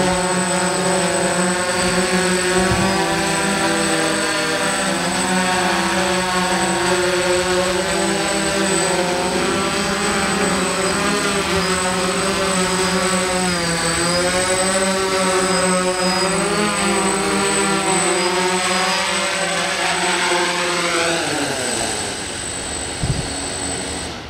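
DJI Flame Wheel F550 hexacopter's six motors and propellers whining in flight, their pitches wavering and beating against one another with a thin high whine above. About 21 seconds in, the motors spin down and the sound falls away, with a small knock near the end.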